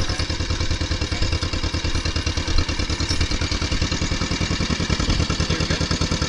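1955 John Deere 40 S tractor's two-cylinder engine running at a steady speed as the tractor drives along, with an even, rapid beat of exhaust pulses.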